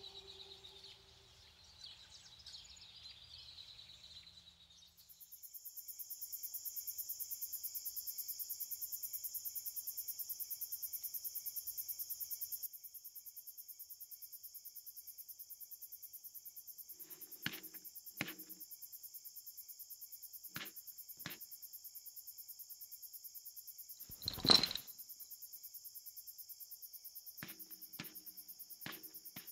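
Chorus of crickets, a steady high trill of rapid pulses, fading in over the first few seconds and stepping down in level about halfway through. Over it, from about 17 seconds on, come scattered sharp clicks and knocks in ones and twos, the loudest a single ringing knock about four-fifths of the way in.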